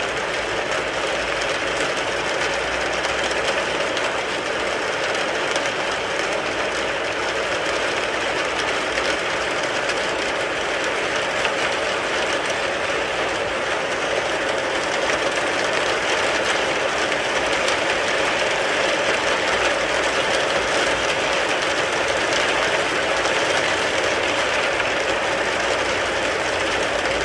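Rain falling on a car, a dense, steady patter of drops that holds the same level throughout.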